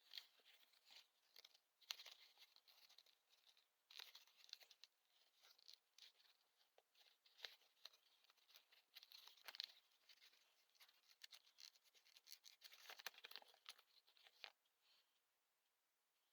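Faint scratching, rustling and light clicks of hands handling and working at an old leather knife sheath, in scattered bursts that stop shortly before the end.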